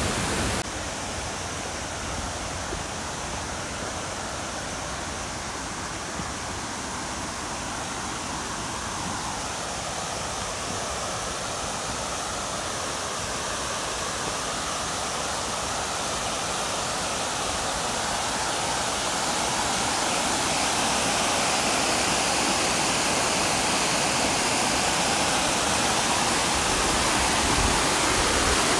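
Waterfall and river cascades, water rushing in a steady even noise that grows gradually louder through the middle.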